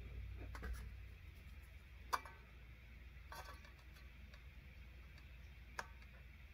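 A few light clicks and taps from handling the power supply's opened front-panel circuit board in its plastic shell, the sharpest about two seconds in and another near the end.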